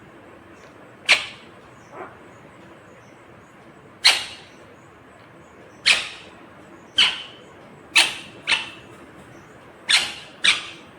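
Green ringneck parrot (rose-ringed parakeet) giving about nine short, sharp calls, spaced irregularly a second or two apart, with two quick pairs near the end.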